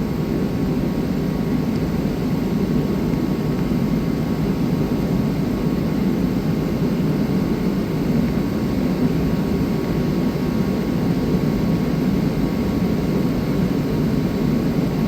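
Steady drone of a running fan-type machine, even and unchanging throughout.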